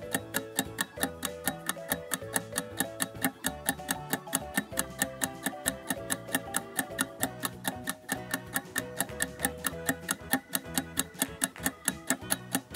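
Countdown timer sound effect: clock ticking at about four ticks a second, starting sharply and running steadily over light background music.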